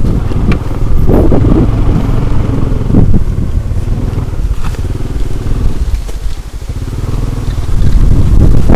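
A motor vehicle engine running steadily, easing off briefly about six seconds in, then picking up again.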